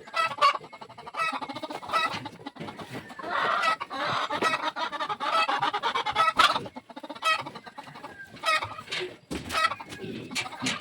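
Farm animals calling: a run of short, repeated calls, crowding together into a denser stretch in the middle before thinning out again.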